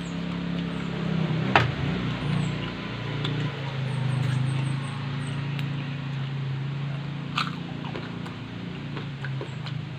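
People eating with their mouths close to the microphone: chewing and biting into crisp pork-fat chicharon, with a sharp crunch about one and a half seconds in and another a little past seven seconds. A steady low hum runs underneath.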